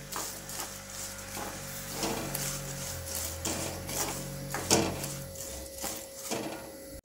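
Plastic spatula scraping and stirring a thick mix of raw mango pulp and jaggery around a non-stick kadhai, in irregular strokes over a faint sizzle. The mix is being kept moving so it does not stick and burn on the bottom as it cooks down into jam.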